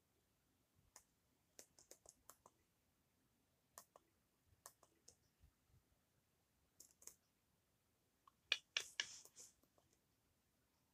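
Scattered sharp clicks of remote-control buttons being pressed to step through an on-screen keyboard, with a louder quick run of clicks about eight and a half seconds in.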